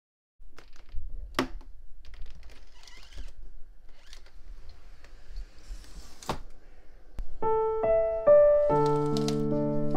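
Sliding glass window being unlocked and opened: sharp clicks about a second in and again at about four and six seconds, with a rolling, sliding sound between them. Soft piano music comes in after about seven seconds.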